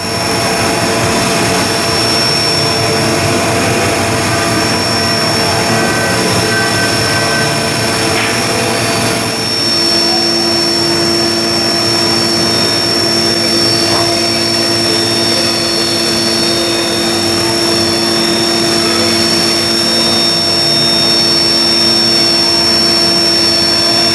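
Dah Lih MCV 720BA vertical machining centre running under power: a steady whirring with a constant high whine. A lower hum drops in pitch about ten seconds in.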